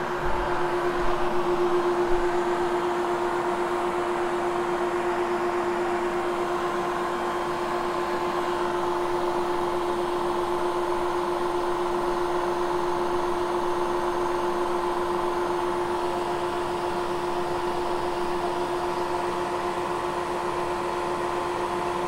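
Upright vacuum cleaner's motor running steadily with a constant hum at an unchanging pitch.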